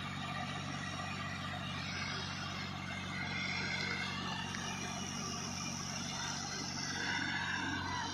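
Farm tractor's diesel engine running steadily at an even pitch.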